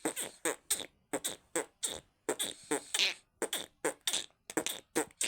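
A boy beatboxing: a quick, even run of mouth-made drum hits and pops, about four a second.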